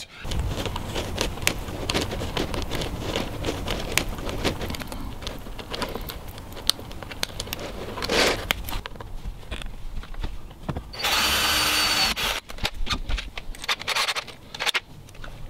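Curtain fabric rustling and scraping as it is worked into an aluminium curtain track, with small clicks and knocks of handling. About eleven seconds in, a power drill runs steadily for just over a second.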